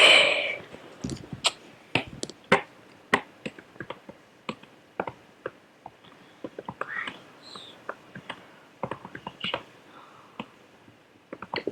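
Typing on a computer keyboard: a run of irregular keystroke clicks, a few sharper than the rest, after a short loud rush of noise at the very start.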